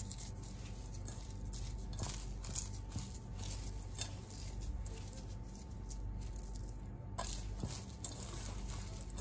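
Hands kneading a spiced kebab mixture in a bowl: faint, irregular soft squelches and taps over a steady low hum, with a thin steady whine that stops about seven seconds in.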